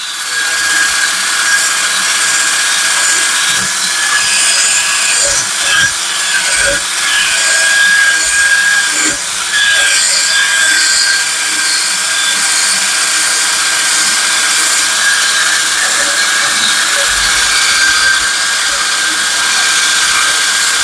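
Cordless-style hand drill spinning a wire wheel at a steady high speed, its bristles scouring caked grass and grime off a steel lawnmower blade, with a steady high whine from the drill and a harsh scratching hiss that wavers as the wheel is pressed and moved along the blade.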